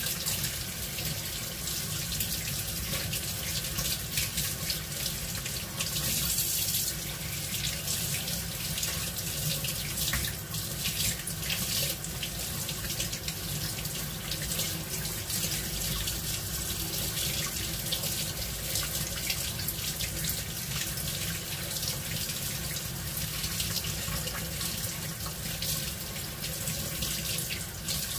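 Kitchen tap running steadily into a stainless steel sink, the stream splashing over a piece of fish as it is rinsed by hand.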